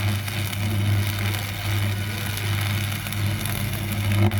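A steady low electrical or machine hum with a crackling hiss over it.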